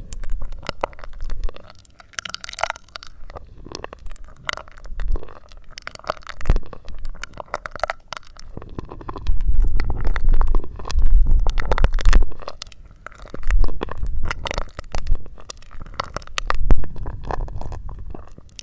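ASMR mouth sounds through a drinking straw held to the microphone: wet clicks and sucking, with repeated low rumbling gusts of breath hitting the microphone.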